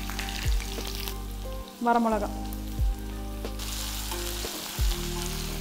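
Shallots and curry leaves frying in hot oil tempered with mustard seeds in a small kadai, stirred with a wooden spatula: a steady crackling sizzle that eases off for a couple of seconds around the middle.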